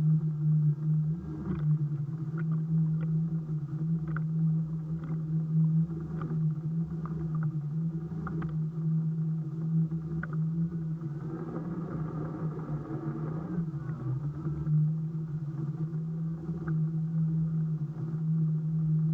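Electric outboard motor of a solar-powered outrigger banca humming at a steady pitch while under way, with small splashes of water against the hull and float. A brighter whine joins in for a few seconds around the middle.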